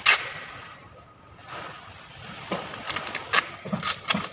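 Packing tape being worked on a handheld tape dispenser: a brief loud tearing burst at the start, then from about halfway a quick run of sharp crackles and clicks.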